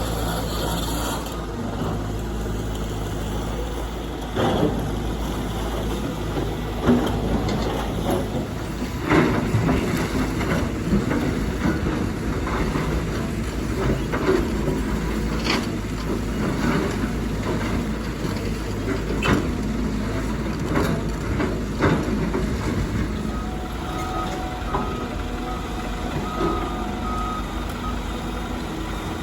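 Heavy earthmoving machinery running steadily, with scattered metallic clanks and knocks, and a reversing alarm beeping repeatedly in the last few seconds.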